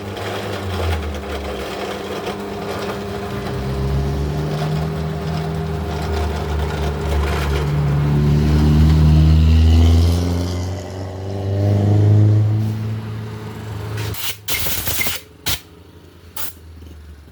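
A motor running, its pitch rising and falling as it speeds up and slows down, then dying away about three-quarters of the way through, followed by a few sharp knocks.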